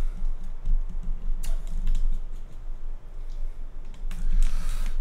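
A small dog's claws clicking and scratching on a hardwood floor: scattered light clicks, with a denser scuffle near the end.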